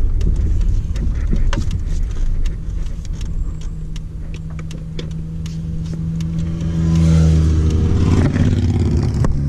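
Car engine running under load, heard from inside the cabin. It gets louder about seven seconds in and rises in pitch as the car accelerates near the end. Light clicking and rattling from keys swinging on a lanyard in the ignition runs through it.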